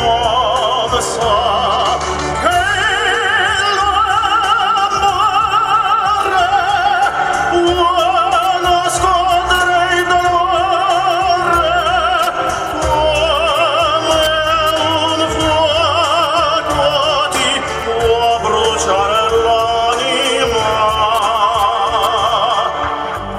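Italian operatic pop ballad with orchestral backing, its melody sung with a wide vibrato between the verses' words.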